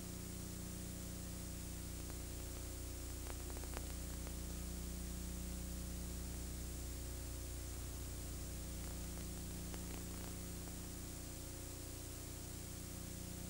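Steady electrical hum and hiss from a blank stretch of old videotape, with a few faint clicks.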